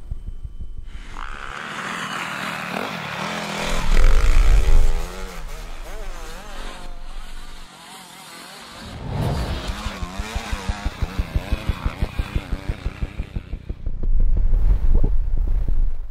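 Motocross dirt bike engines revving up and down as riders pass, with two loud low rumbles, one about four seconds in and one near the end, and a fast pulsing stretch in the middle.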